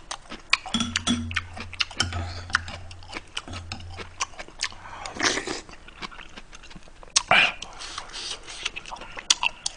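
Close-miked eating: chewing and mouth sounds, with utensils clicking against the dishes. There are louder wet mouth noises about five and seven seconds in.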